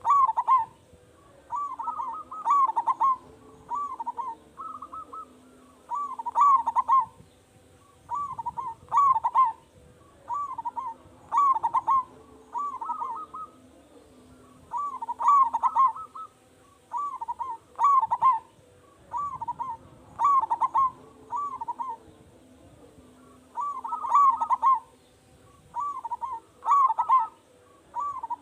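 Zebra dove (perkutut) cooing: phrase after phrase of short rolling coo notes, repeated every second or two with brief pauses between phrases.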